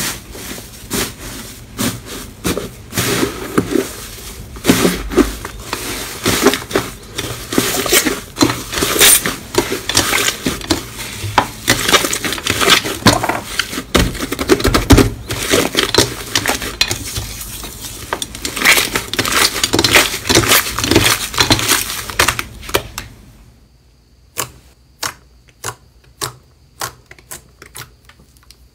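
Hands squeezing and kneading a thick, grainy slime, a dense run of crackles and squelches. About 23 seconds in it gives way to fingers pressing a glossy slime, with sharp separate clicks about two a second.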